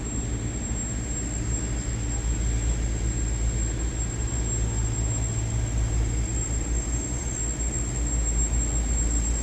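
Steady low outdoor rumble of city background noise, uneven at the bottom end, with a thin steady high-pitched tone throughout.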